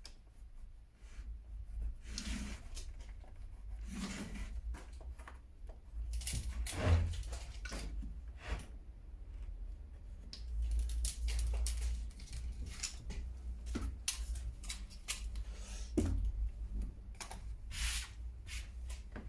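Pencil scratching as cut lines are marked on a plywood board, with irregular clicks and light knocks from handling a ruler and tools, over a low steady hum.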